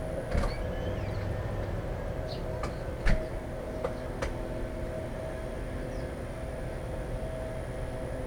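Birds at a seed feeder tapping and knocking on the Plexiglas right by the microphone: several sharp taps, the loudest about three seconds in, with a few faint high chirps, over a steady low hum.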